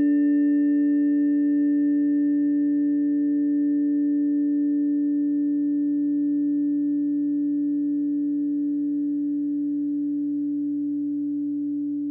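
A sustained harmony of pure, steady tones, like tuning forks or sine tones, used as a sound-healing planetary harmony. A low tone is the loudest, with several fainter higher tones above it. It fades slowly, and its highest tone dies away about four or five seconds in.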